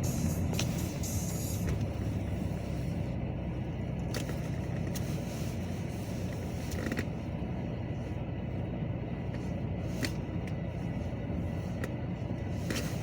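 Metra commuter train with a steady low diesel-locomotive rumble and a few sharp clicks scattered through it.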